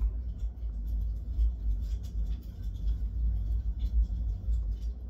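Briar pipe being puffed in short draws, heard as faint soft pops over a low rumble that rises and falls.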